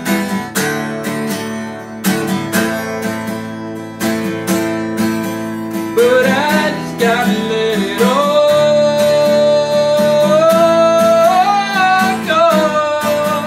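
Takamine acoustic guitar strummed in a steady rhythm. From about six seconds in, a man's voice sings along, holding one long note and then sliding up and back down near the end.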